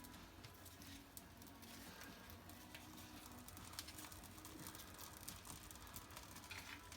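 Faint crackling and rustling of bark kindling as a fire is being lit in a fireplace, a scatter of small irregular clicks.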